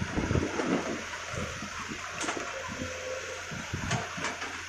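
Link-Belt Sumitomo long-reach excavator dredging wet canal mud: the bucket drags through sludge and lifts, with water splashing and pouring off it, over the steady noise of the machine, with scattered low thumps.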